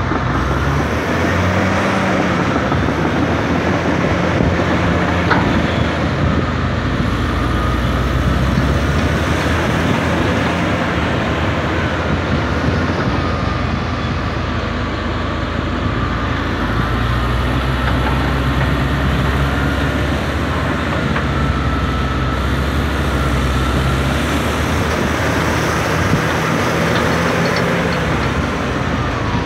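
Komatsu D61 crawler bulldozer's heavy diesel engine running hard under load as the machine works to free itself from deep bog mud. The engine note rises and falls, with a faint whine above it.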